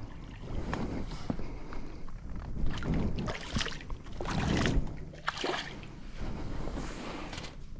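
Water sloshing and splashing around a small boat, in irregular swells, with a few sharp knocks.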